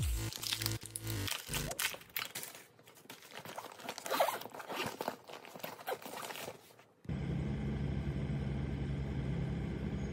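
A soft insulated lunch bag being handled and zipped shut, with short rasping and scuffing noises. About seven seconds in, this gives way to a steady low hum of a vehicle engine idling, heard from inside a car.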